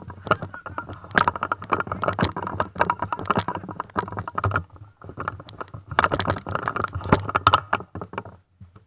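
Airsoft M60 electric gun firing on full auto in two long bursts, a fast rattle of shots over the whine of its motor and gearbox, with a short pause about halfway through.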